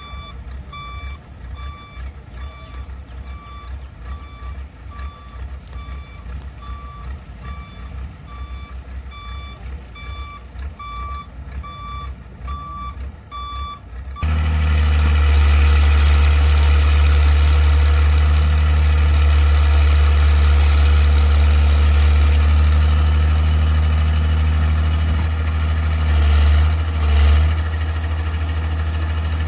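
Repeated reversing-alarm beeps from a heavy machine over a low diesel engine throb. About halfway through, the sound jumps abruptly to a much louder, steady heavy diesel engine running, with two brief swells in engine sound near the end.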